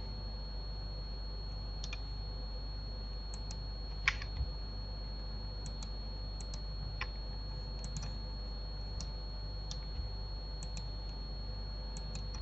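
Scattered clicks of a computer mouse and keyboard, about one a second and several in quick pairs, the sharpest about four seconds in, over a steady low electrical hum and a faint high whine.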